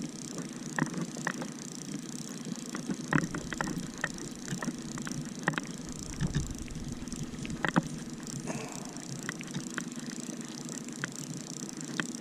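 Boat's outboard motor running steadily at trolling speed, a low even hum, with scattered sharp clicks and knocks on top.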